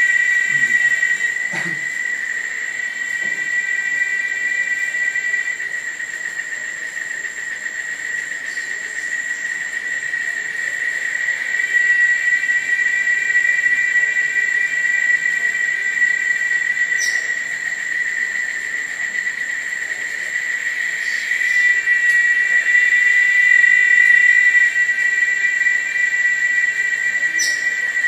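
Tropical forest ambience at dusk: a steady insect chorus of continuous high-pitched tones that swells and eases, with a few brief high chirps.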